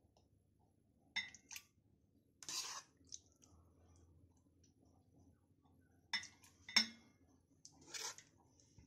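Steel spatula clinking and scraping against a metal cooking pan while thick mango pickle is scooped out: a couple of sharp clinks about a second in and two more around six to seven seconds in, with longer scrapes between them and near the end.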